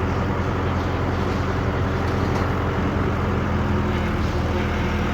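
Construction machinery engine running steadily at constant speed, a low hum with a wash of mechanical noise over it.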